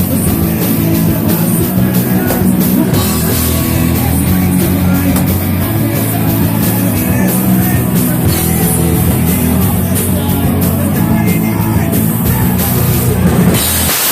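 Loud rock band playing, with drum kit, heavy guitars and bass, and a crash across the high end near the end.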